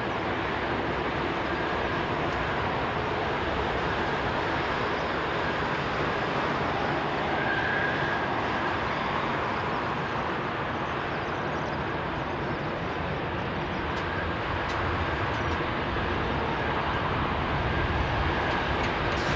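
Boeing 747-8 freighter's four GEnx turbofan engines running at low taxi thrust: a steady jet rumble with a faint high whine, a little louder near the end.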